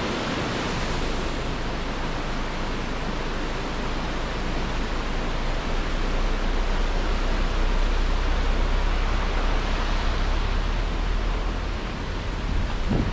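Rocky mountain stream rushing over boulders: a steady, even rush of water. About six seconds in, a low rumble grows beneath it.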